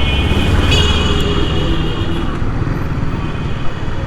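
Motorcycle riding in road traffic: steady engine and wind rumble, with a high-pitched tone that lasts about two seconds near the start.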